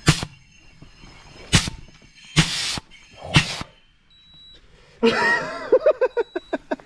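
Pressure relief valve on an air-pressurised water-filter pot popping at about 5.5 bar, venting air in four short loud hisses over the first three and a half seconds. A short high beep from the dive computer's depth alarm sounds about four seconds in.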